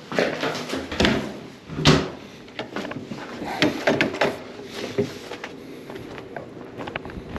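Building doors being pushed open and swinging shut, with clunks and knocks, the loudest about two seconds in, followed by lighter knocks and footsteps.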